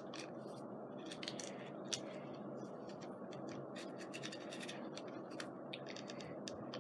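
Scratching, rustling and small sharp clicks of paper and burlap craft flowers being handled and set down on a scrapbook page, over a steady background hiss.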